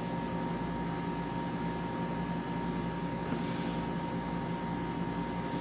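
Steady machine hum with several constant tones, and a brief soft hiss about three and a half seconds in.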